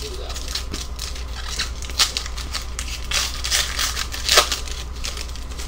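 Foil trading-card pack wrapper crinkling and tearing as it is handled and opened, a dense run of crackles with sharper ones about two, three and four and a half seconds in.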